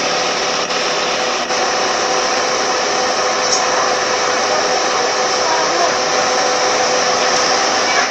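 Car air-conditioner blower fan running steadily: an even rushing whoosh with a faint steady hum.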